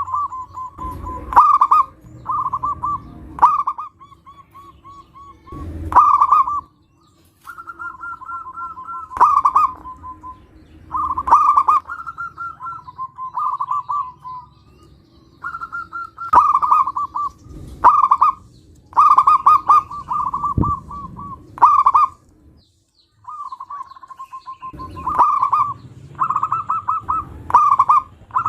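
Zebra doves (perkutut) cooing: repeated phrases of quick staccato coo notes at a fairly steady pitch, with short pauses between phrases and a few sharp clicks.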